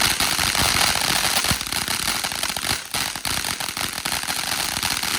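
Consumer firework going off: a loud, dense run of rapid crackling pops over a continuous hiss.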